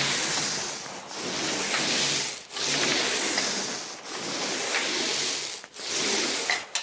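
Paint roller loaded with wall paint rolling up and down a wall in long strokes, spreading the paint out. Each stroke is a steady hiss with a short break where the roller changes direction, about five strokes in all.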